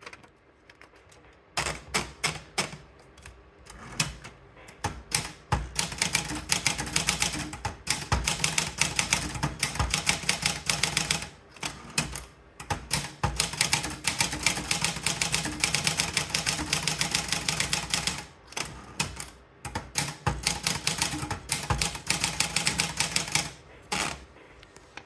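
Olympia Traveller portable manual typewriter being typed on: fast runs of key strikes, broken by a few short pauses.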